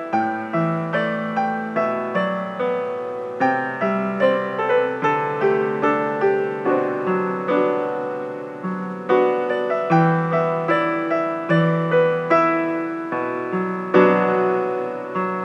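Piano music: a gentle melody over chords and a bass line, each note struck and then fading, about two to three notes a second.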